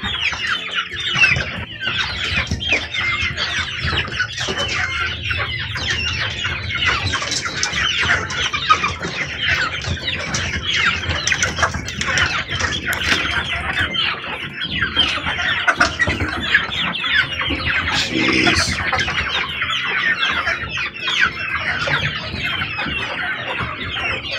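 A flock of chickens calling continuously, many short, downward-sliding peeps and clucks overlapping as the birds crowd a waterer.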